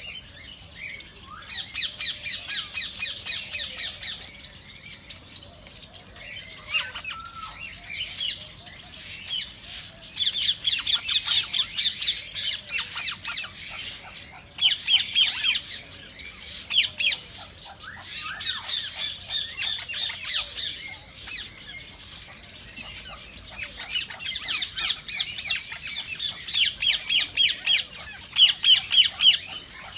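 Rose-ringed parakeets calling: bouts of shrill, rapidly repeated squawks, about four a second, broken by short quieter gaps.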